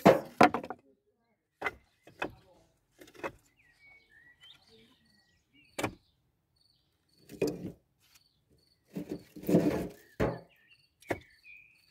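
Split firewood logs being set down one at a time onto a woodpile: a string of separate wooden knocks and clunks, some heavier than others, a second or two apart. Birds chirp faintly between them.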